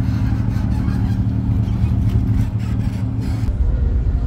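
An engine running with a steady low hum and rumble, with a few faint ticks about two to three seconds in.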